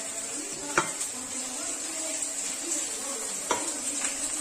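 A spoon stirring wet ceviche of diced raw fish, red onion and lime juice in a stainless steel bowl, with a few sharp clinks of the spoon against the bowl. The loudest clink comes about a second in. A steady hiss runs underneath.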